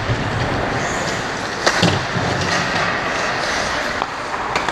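Ice hockey skates carving and scraping on the ice as a steady hiss, with sharp knocks of stick and puck play, loudest about a second and a half in and again near the end.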